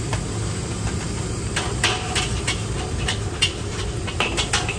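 Street noise: a steady low rumble of engines, with a run of irregular sharp clinks and knocks starting about a second and a half in.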